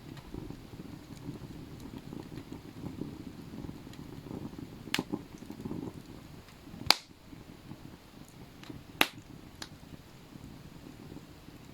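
Campfire crackling softly, with three sharp pops; the loudest comes about seven seconds in.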